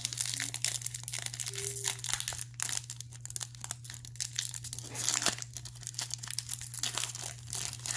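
Foil wrapper of a Donruss football trading-card pack being torn open and crinkled by hand, a dense run of irregular crackles, as the cards are pulled out of the pack.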